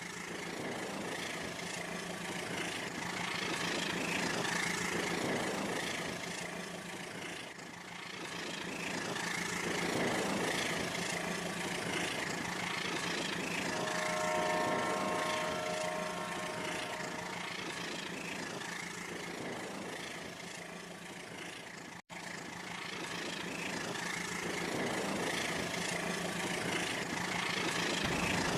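Rail King battery-powered toy train running on its track: a steady small electric motor whine with wheel rattle that swells and fades as the train comes near and moves away. A held horn-like tone sounds for about two seconds midway, and the sound cuts out for an instant about three-quarters through.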